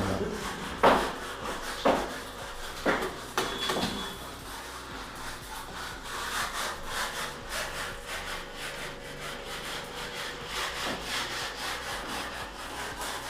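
A few sharp knocks about a second apart, then steady gritty scraping and rubbing.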